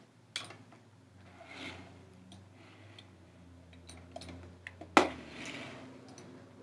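Scattered quiet clicks and ticks of a computer mouse and desk, the sharpest click about five seconds in.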